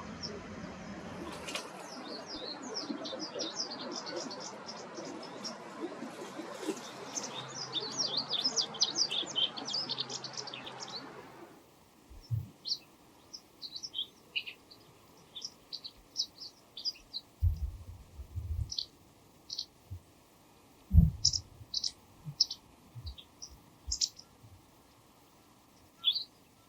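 White wagtail calling, a run of short high "chipi chipi" chirps, dense over steady background noise until about halfway through. Then the background drops away and the chirps come singly and sparser, with a few low thumps, the loudest about two thirds of the way in.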